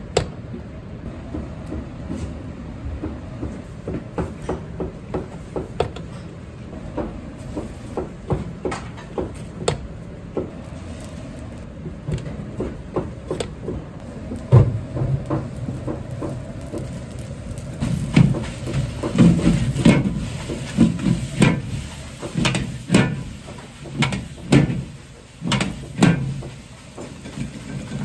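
Metal ladle knocking and scraping against a stainless-steel pot as cooked rice is scooped out, then a ladle clanging repeatedly against a wok as rice and egg are stir-fried, the knocks coming faster and louder in the second half. A steady low kitchen rumble from the burners and ventilation runs underneath.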